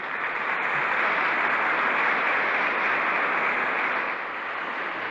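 Large crowd applauding, coming up quickly and easing off slightly after about four seconds.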